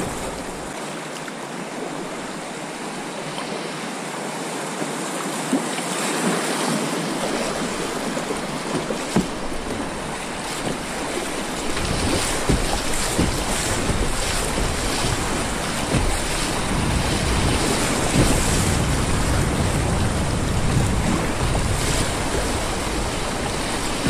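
Rushing whitewater of a creek rapid, with waves splashing against the bow of a plastic kayak running through it. A low rumble joins about halfway through.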